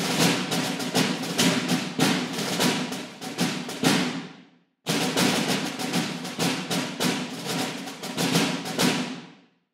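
Music: a percussion passage of rapid drum hits in two runs, each fading away, the first dying out about halfway through before the second begins.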